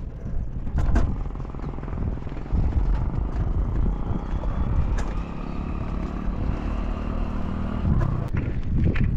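Wind buffeting the microphone of a handlebar-mounted camera and tyre rumble as a bicycle rolls over a steel bridge deck, with a few sharp knocks as the tyres cross the deck plate joints.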